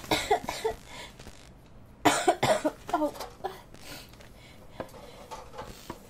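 A person coughing in two short fits, the second one, about two seconds in, louder and longer.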